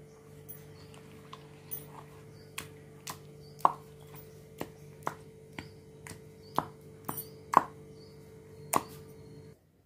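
Stone pestle pounding tomatoes and green chillies in a stone mortar, crushing them to a coarse pachadi: irregular sharp knocks of stone on stone, about one or two a second, a few much louder. A steady low hum underneath cuts off near the end.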